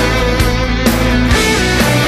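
Rock music with guitar and a steady beat.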